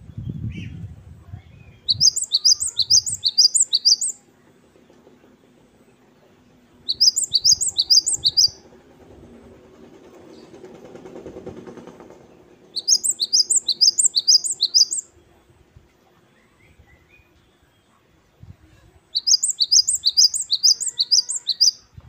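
Cinereous tit (gelatik batu, the grey Asian great tit) singing its 'wucit-wucit' song: four bursts of quick, high whistled phrases, each phrase falling in pitch, repeated about four times a second, with pauses of a few seconds between bursts.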